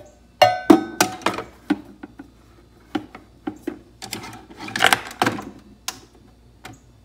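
Handling clatter of a stainless-steel travel tumbler being set on a Keurig coffee maker's drip tray and the brewer's lid being worked: a string of clicks and knocks, with a brief metallic ring about half a second in and a denser clatter near the middle.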